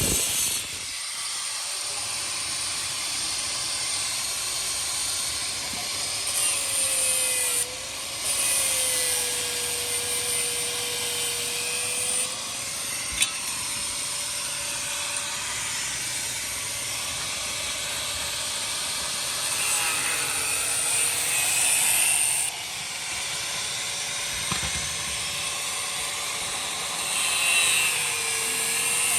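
A small power tool's motor running steadily with a hissing whir. Its pitch sags briefly a few times, as when it is pressed into work.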